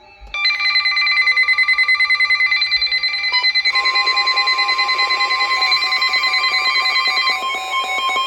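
Emergency Alert System warning tones. A loud, rapidly pulsing electronic alert of several ringing tones starts about half a second in. About three and a half seconds in, a steady single alarm tone joins it.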